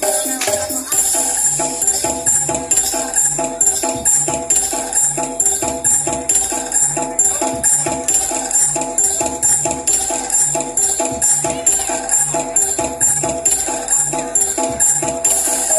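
Javanese jaranan-style ensemble music: a steady beat of about three strokes a second with bright, high metallic percussion over a repeating pitched melody.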